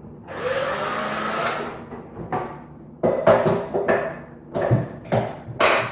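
Toilet seat mounting bolts being worked loose and taken off by hand. A rough scraping for about a second, then a quick run of sharp knocks and clicks as the hardware is handled.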